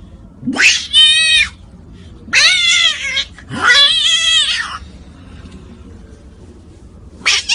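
Loud, drawn-out meows: about four yowling calls, each around a second long, rising and bending in pitch, with short pauses between them and the last one starting near the end.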